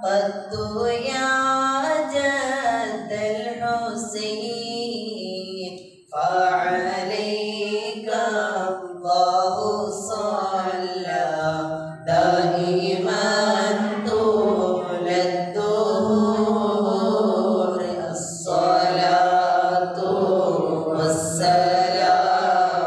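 Male voices chanting a Mawlid recitation unaccompanied through microphones, in sung phrases about six seconds long with brief breaks between them.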